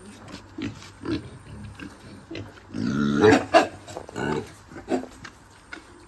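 Pigs grunting in short calls, with a louder, longer call about three seconds in.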